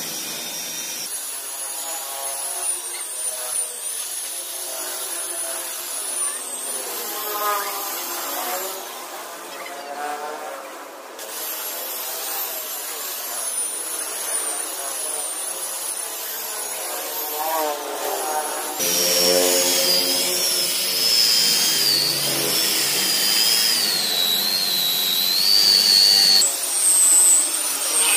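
Electric rotary car polisher running, its motor whine wavering up and down in pitch as the pad works over the paint. The sound changes abruptly several times and is loudest in the later part.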